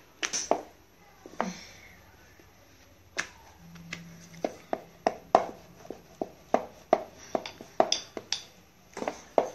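Wooden rolling pin and wooden board knocking as a thin dough round is rolled out, a few knocks early on and then a steady series of light knocks about two to three times a second from about three seconds in.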